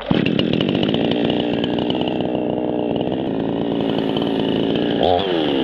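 Chainsaw running steadily at high speed, starting abruptly. About five seconds in, its pitch dips once and rises back.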